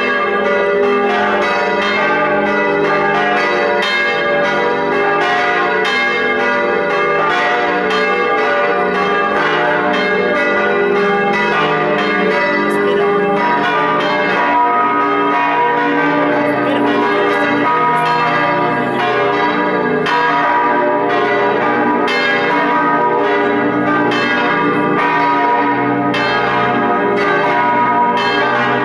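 Several church bells ringing together, a continuous stream of overlapping strokes with long ringing tones.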